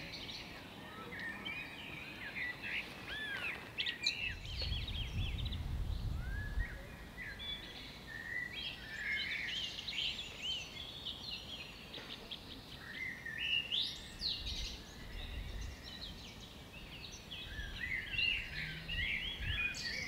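Several small songbirds singing and calling at once, with many quick overlapping chirps, trills and short sliding notes. A low rumble comes in twice, a few seconds in and again past the middle.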